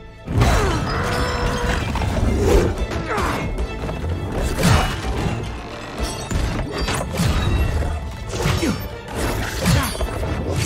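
Film fight soundtrack: dramatic music under a rapid string of crashes, smashes and hard impacts.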